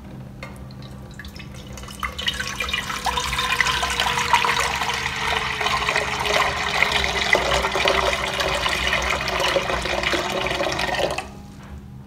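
A stream of water pouring into an empty stainless steel stockpot, a steady splashing rush that starts about two seconds in and stops abruptly near the end as the pouring ends.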